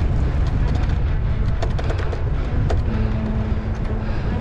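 Wind rumbling on a helmet-mounted action camera's microphone while riding a bicycle, with scattered sharp clicks and rattles. A steady hum sets in about three seconds in.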